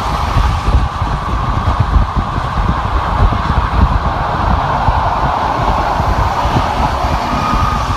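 Steady road noise of a car travelling at freeway speed: tyre and wind noise over a low rumble.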